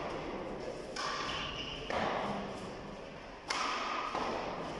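Badminton doubles rally: several sharp racket hits on the shuttlecock and thuds of players' feet on the court, over a background of voices.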